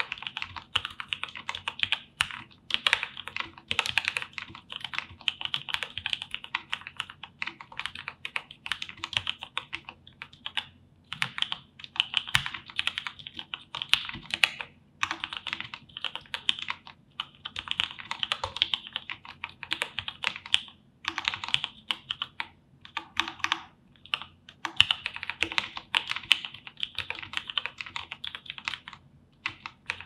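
Typing on a GNAP 2.0 40% mechanical keyboard with Gateron Milky Black linear switches lubed with Krytox 205g0, an FR4 plate, foam dampening and TEX ADA keycaps: fast, dense runs of keystroke clacks broken by short pauses every few seconds.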